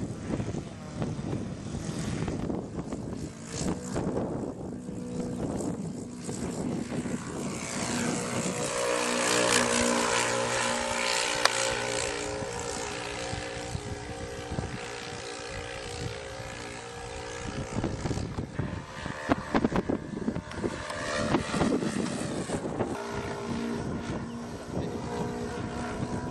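Engines and propellers of a large radio-controlled scale model Beech 18 running in flight. The engine tone swells about a third of the way in as the model passes close, then fades. Gusts of wind buffet the microphone.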